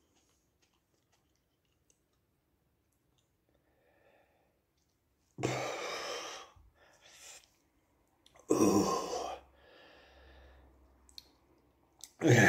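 A man blowing out three hard breaths, each about a second long, the first about halfway through and the others some three seconds apart, with a quieter murmur between the last two: he is coping with the burn of a fresh Carolina Reaper chili. Faint regular ticking before the breaths.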